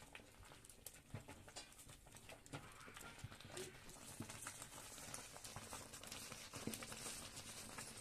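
Faint, irregular knocks and scrapes of a wooden mwiko stirring and pressing stiff ugali against the side of a metal pot.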